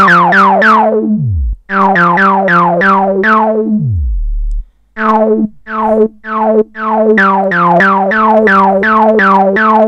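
LushOne modular synthesizer playing quick repeated notes, about four a second, alternating between two pitches, each note with a falling filter sweep. The phrases break off briefly about a second in and for about half a second around four seconds in, the pitch sliding down at the end of a phrase.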